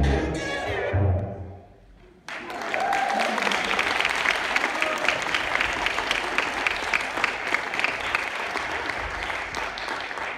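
The music cuts off, and after a short pause an audience breaks into clapping about two seconds in, keeping up steady applause.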